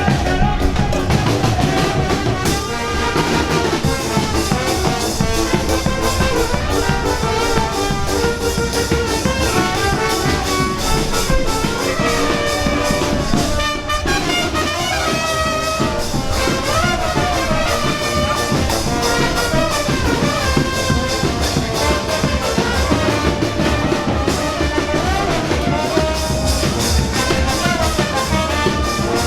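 Brass band music: trumpets and trombones playing a melody over drums, steady throughout.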